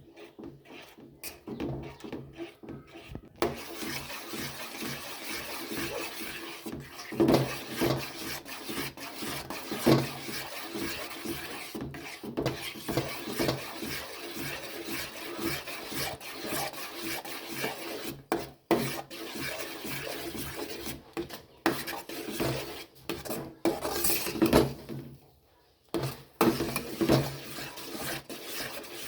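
A spatula stirring and scraping a thick mixture of roasted rava, coconut and jaggery syrup in a kadai: a continuous rasping, with louder strokes now and then. It starts a few seconds in and pauses briefly near the end.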